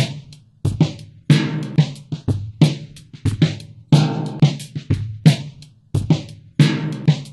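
Background music with a steady drum-kit beat, kick and snare hits over a low pitched part.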